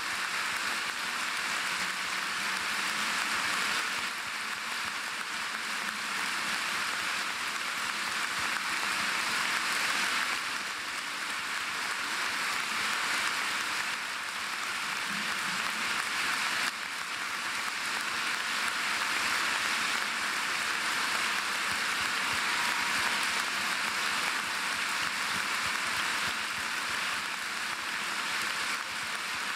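Large audience clapping: a long, steady round of applause.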